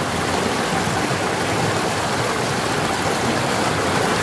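Rushing water of a small river cascade pouring over rocks and splashing around a person sitting in the flow, a steady, even rush.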